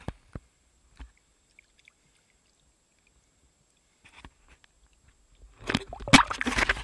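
Water splashing and churning against the camera as it plunges through the river surface, starting about five seconds in; before that only a few faint taps.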